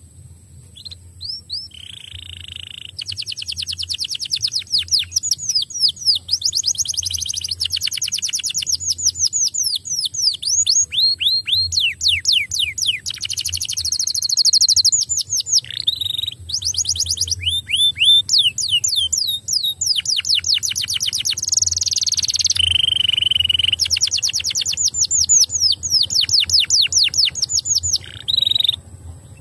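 Domestic canary singing a long, nearly unbroken song of fast trills, each phrase a rapid run of the same short note, switching from one trill to the next every second or two. It stops shortly before the end.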